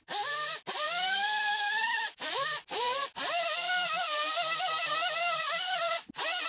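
A utility knife blade scraping dried epoxy on a plastic gas tank, squealing in long strokes. Each stroke holds a wavering pitch and is broken off by a short, sudden gap.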